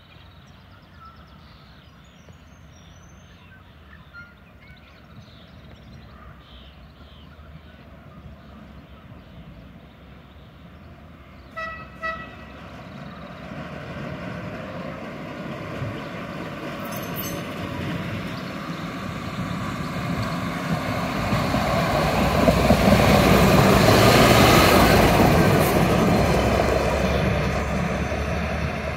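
Gradco hi-rail truck giving two short horn toots as it nears the road crossing. It then runs in along the rails, growing steadily louder to pass at its loudest about two-thirds of the way through before starting to fade.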